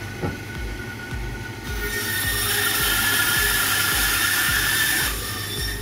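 Meat band saw cutting through a cow's foot. The blade bites into the bone about two seconds in and gives a loud, high whine with hiss over the motor's hum, then eases off near the end as the cut finishes.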